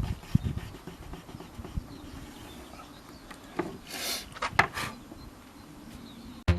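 A few short rubbing strokes on wood about halfway through, over faint background noise.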